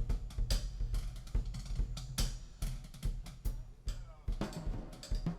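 Instrumental music led by a drum kit playing a steady beat of kick and snare strokes over a deep sustained bass.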